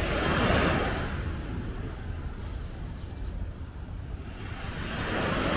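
Cars passing on the road behind a beach: two swells of rushing noise, one fading about a second in and another building near the end, over a steady low rumble and the wash of small waves.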